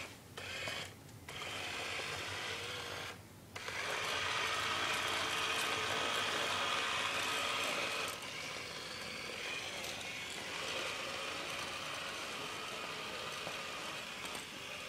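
Remote-control spy car's small electric drive motors and gears whirring as it drives, starting and stopping a few times in the first three seconds or so, then running steadily, loudest for a few seconds before easing slightly.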